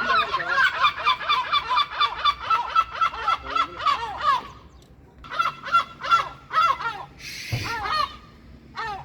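Gull calling: a rapid series of short, repeated, arched notes, about four a second for over four seconds, then after a short pause more runs of calls.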